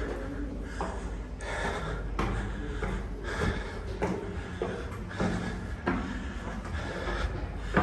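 A man breathing hard and fast, a quick breath about every three-quarters of a second, out of breath from climbing a long stone stairway.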